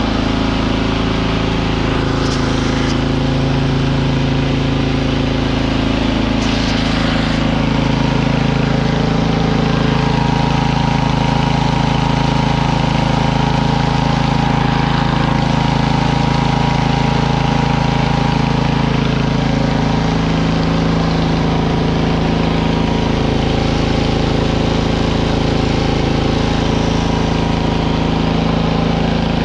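The Biltema CST 7113 snowblower's 375 cc Loncin single-cylinder four-stroke engine running steadily, with small shifts in pitch.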